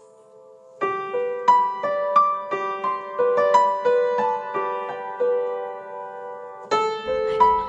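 Solo piano playing a slow melody in single notes and chords. A held chord fades out, a new phrase starts a little under a second in, and a fuller chord comes in near the end.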